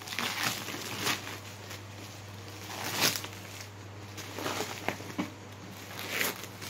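Plastic wrapping crinkling and rustling in irregular bursts as a parcel wrapped in a black plastic bag and clear tape is pressed and pulled at by hand, loudest about three seconds in.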